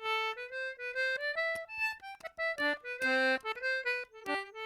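Solo accordion-type squeezebox playing a traditional Irish tune: one melody line of quick, short notes with brief gaps between phrases.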